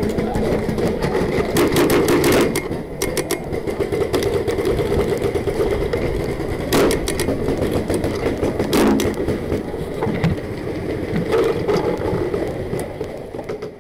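Paintball markers firing rapid strings of shots, a dense stream of sharp pops with a few louder volleys.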